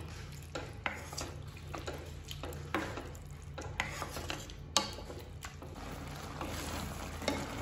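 Spatula stirring a milky vegetable sauce in a wok (kadhai), with irregular clicks and scrapes against the pan. The sauce simmers with a steady hiss underneath, more even near the end when the stirring stops.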